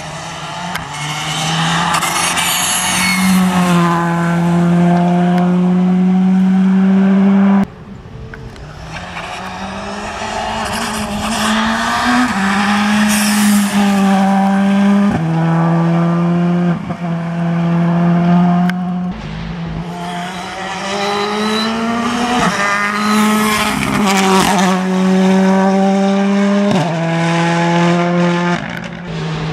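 Several R5 rally cars, among them a Skoda Fabia and a Ford Fiesta, passing flat out, their turbocharged four-cylinder engines held at high revs with sudden drops in pitch at each upshift. Abrupt cuts about 8 and 19 seconds in jump from one car's pass to the next.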